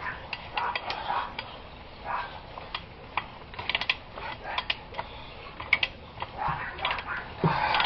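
Irregular light metallic clicks and clinks of hand tools and threaded galvanized gas pipe fittings being handled, with a louder knock near the end.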